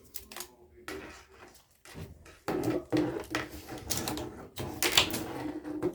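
Plastic parts and packaging being handled: scattered clicks and clacks, turning into a denser run of clicking and rustling about halfway through.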